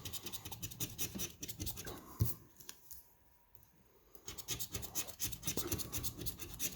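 Scratch-off lottery ticket being scratched in rapid back-and-forth strokes. The scratching stops for about a second and a half in the middle, then starts again.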